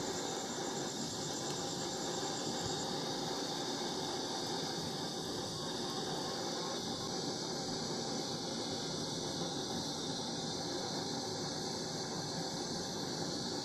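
Compressed-air-blown LPG torch, a modified AC brazing torch, running steadily on a crucible: an even hissing rush of flame and air while it heats burnt phone flex circuits to melt them into metal.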